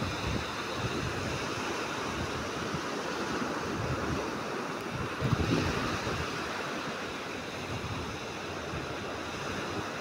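Small waves breaking and washing up onto a sand beach, a steady hiss of surf. A brief low rumble of wind on the microphone about halfway through.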